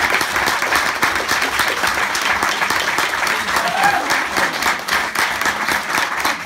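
Small audience clapping steadily after a song ends.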